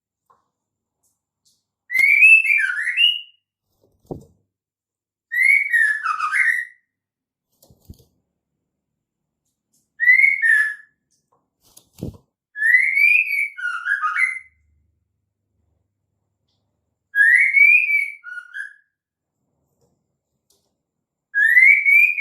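Female white-rumped shama calling: six short phrases of whistled notes that rise and fall, spaced a few seconds apart. Faint low thuds sound in some of the pauses.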